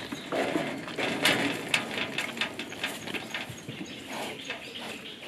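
Sambar deer chewing close up: an irregular run of short wet clicks and crunches, loudest and busiest a second or so in.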